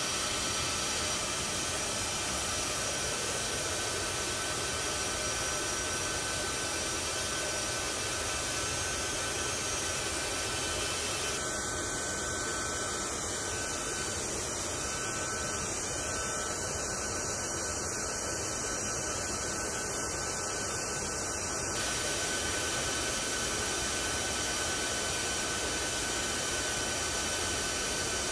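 Parked military transport aircraft's turbines running: a steady rushing roar with several high, steady whining tones over it.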